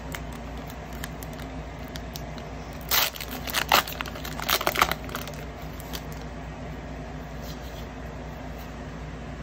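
Foil Pokémon booster pack wrapper being torn open and crinkled: a few short, loud crackling bursts about three to five seconds in.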